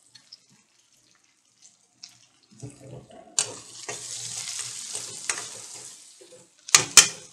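After a near-silent start, small onions and green chillies sizzle in hot oil in a kadai as a steel ladle stirs them, scraping the pan with sharp clinks, the loudest two near the end.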